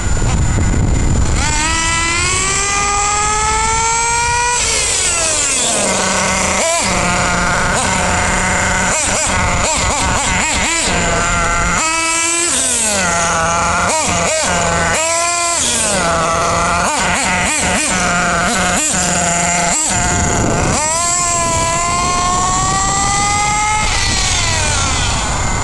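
Small nitro engine of an RC stadium truck revving up in several long rising runs as it accelerates away, dropping back to a steady idle between runs.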